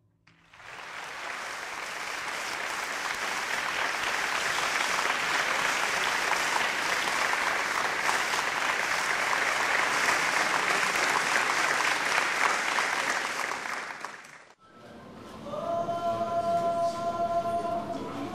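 Theatre audience applauding, swelling up over the first second, holding steady, then fading and cutting off about fourteen seconds in. Near the end a few held musical notes begin.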